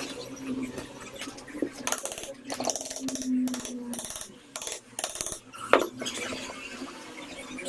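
Metal tools and compressor parts clinking and knocking together as they are handled, in a quick irregular string of sharp clicks.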